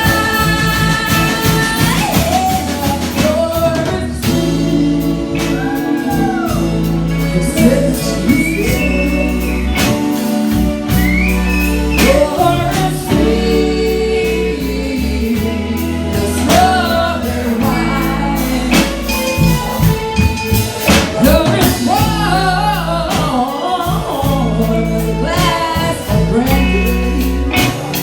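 Live band playing a reggae arrangement with a steady drum beat and a stepping bass line, under a lead melody line that bends up and down in pitch.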